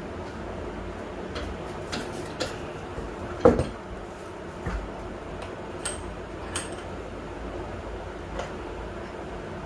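Scattered metal clicks and clinks of tools and hardware being handled at a workbench, a few ringing briefly, with one louder knock about three and a half seconds in, over a steady low hum.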